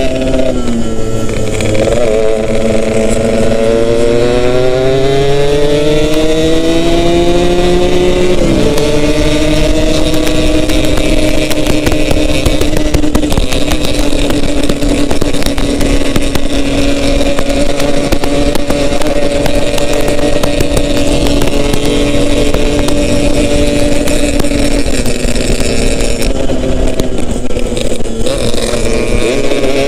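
Yamaha RX-King single-cylinder two-stroke engine running under way. Its pitch climbs for about eight seconds, drops sharply, then holds steady for a long stretch before easing off and climbing again near the end.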